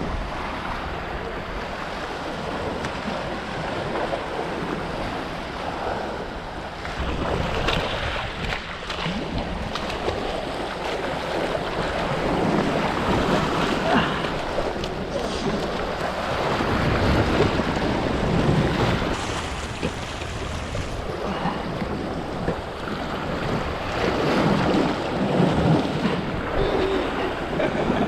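Wind buffeting the microphone over the wash of surf against the jetty, swelling and easing in gusts.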